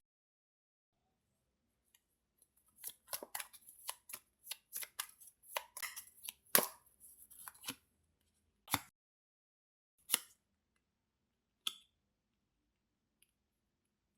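Tarot cards being handled: a quick run of short, crisp card snaps and rustles for a few seconds, then three single snaps spaced well apart.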